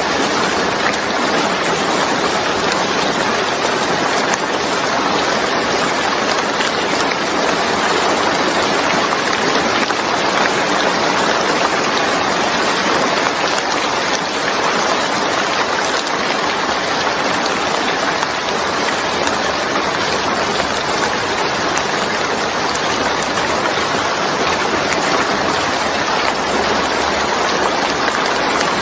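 Steady, even rain falling, a continuous hiss of drops with no thunder or distinct drips.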